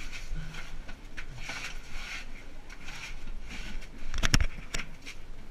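Shuffling and scraping of a person crawling on hands and knees along the earthen floor and walls of a narrow tunnel, in uneven bursts about twice a second. A few sharp knocks about four seconds in, the loudest sounds.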